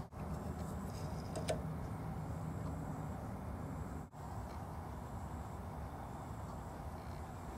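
A low, steady background hum and rumble, broken by two brief dropouts, with a faint click about a second and a half in.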